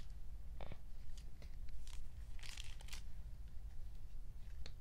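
Faint, intermittent crinkling and rustling of packaging being handled, with a denser patch of crackle about two and a half seconds in.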